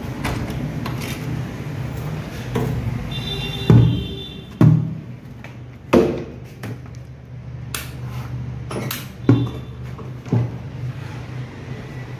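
A key rattling in a door lock and a plastic bucket being handled and set down: about five sharp knocks and clunks, the loudest about four seconds in, over steady background music.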